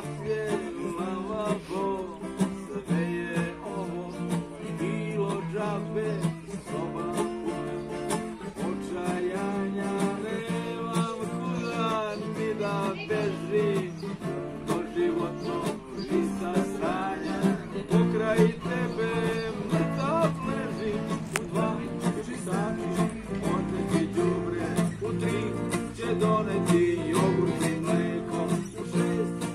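Two acoustic guitars played together in a steady duet, strummed chords and picked notes running on without a break.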